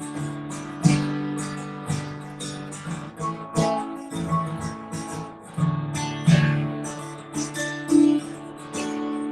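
Acoustic guitar strummed and picked in the closing bars of a folk song, ending on a chord struck near the end and left to ring.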